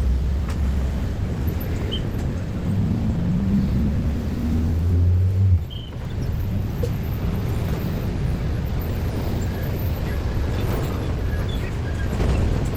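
Road traffic at a railway level crossing: vehicle engines running with a steady low rumble. One engine's low hum stands out from about three seconds in and cuts off suddenly a little before the middle.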